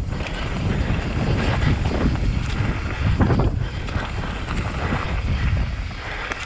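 Wind buffeting the microphone of a mountain biker's action camera during a fast descent, over the rumble of knobby tyres on dirt and leaf litter, with irregular knocks and rattles as the bike goes over bumps.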